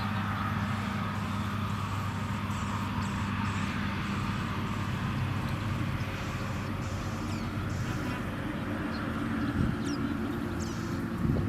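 A steady low motor drone. Faint, brief high chirps of small birds come through, more of them near the end.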